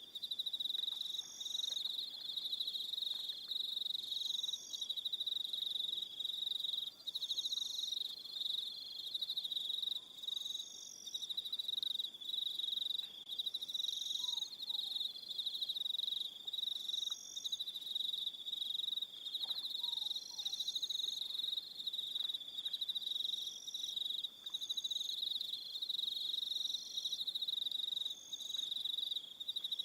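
Evening crickets chirping in a steady, unbroken high trill. A second, higher call repeats about every two seconds over it.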